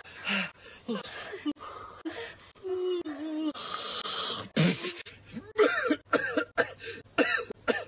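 A man's voice making non-speech sounds: coughing, clearing his throat and groaning, with a short held hum about halfway through followed by a breathy hiss.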